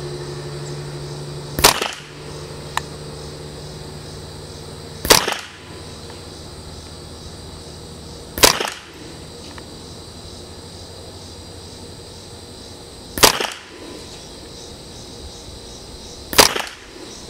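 Ruger 10/22 .22 LR rifle loaded with SK Rifle Match ammunition fired five times, single shots three to five seconds apart. Each is a sharp crack. This is a five-shot fouling (warm-up) group.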